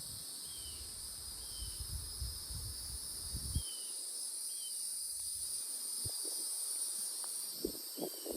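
Steady high-pitched insect chorus, with wind buffeting the microphone as a low rumble for the first few seconds, a few faint short chirps and a couple of soft knocks near the end.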